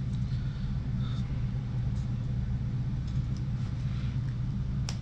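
Steady low hum in the background, with faint rustling of Teflon tape being wrapped by hand around the threads of a small brass pipe fitting.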